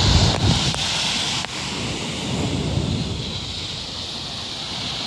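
Wind buffeting the microphone over the steady wash of small waves breaking on a sandy shore, the wind rumble strongest in the first second or so and then easing.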